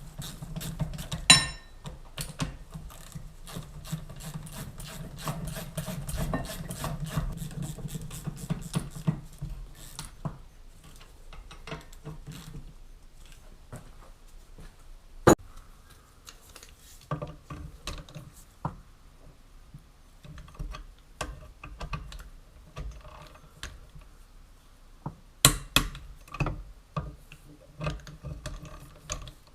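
Hand tools at work on metal: a long run of rapid clicking, like a ratchet being worked, with scattered sharp knocks and clinks, the loudest about a second in and about fifteen seconds in, and a cluster of knocks near the end.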